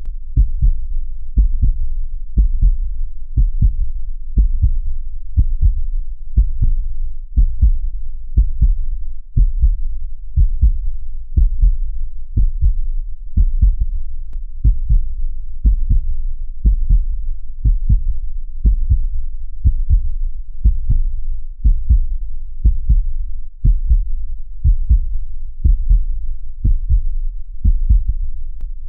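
Heartbeat sound: a steady, even rhythm of low thumps, each beat a quick double thump.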